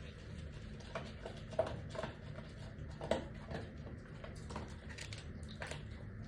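Dog eating: irregular soft clicks and crunches of chewing, a few a second, over a low steady room hum.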